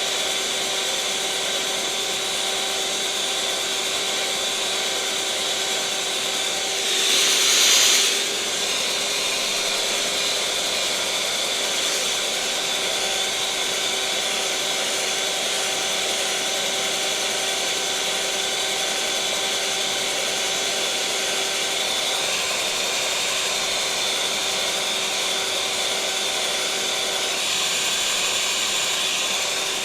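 Electric mixer motor running steadily: a constant hum with a high hiss over it. About seven seconds in it briefly grows louder and hissier for about a second, then settles back.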